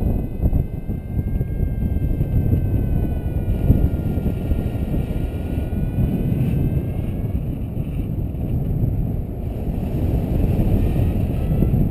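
Airflow buffeting the microphone of a camera mounted on a paraglider pilot in flight, a steady rushing rumble. A faint thin whistle wavers slowly in pitch above it for the first half, and short rising whistles come near the end.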